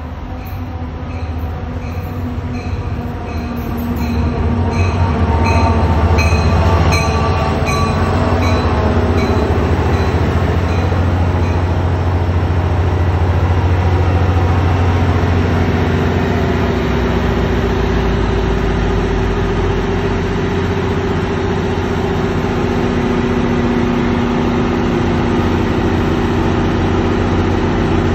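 NJ Transit diesel locomotive pulling into the station, growing louder over the first several seconds while its bell rings at an even pace. A light squeal comes as it slows. It then stands at the platform, its diesel engine running with a steady hum.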